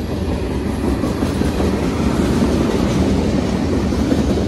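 Freight train cars, tank cars and covered hoppers, rolling past close by at speed: the steady clatter of steel wheels on the rails, growing a little louder about a second in.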